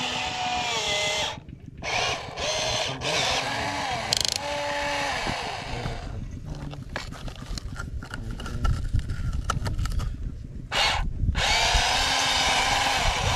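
Small electric motors whining in short spurts, the pitch rising and falling, with rattling and clicking in the middle stretch.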